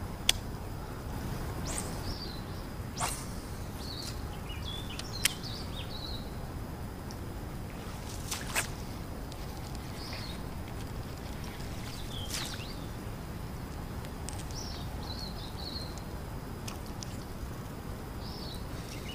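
Small birds chirping in short calls every few seconds over a steady low background hiss, with a few sharp clicks.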